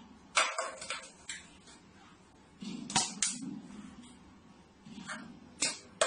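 A plastic water bottle swatted over by a cat, knocking against a tabletop: a sharp knock with a couple of smaller rattles, a pair of knocks about three seconds in, and more knocks near the end.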